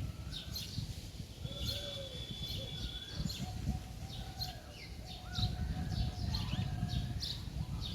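Several birds chirping and calling, with many short chirps and a few longer whistled notes, over a low, irregular rumble.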